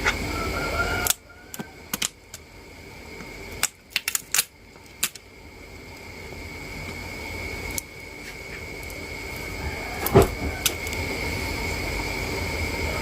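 Scattered small clicks and taps of a smartphone being worked on by hand with plastic opening tools, with a cluster of quick clicks around four seconds in. Under them run a steady hum and a thin high whine.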